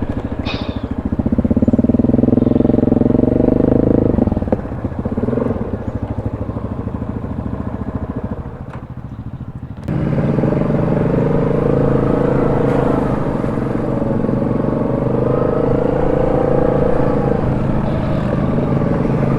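ATV engine running under way, picking up speed about two seconds in and easing back around four seconds. About halfway through the sound changes suddenly to a steadier engine note that wavers slightly in pitch.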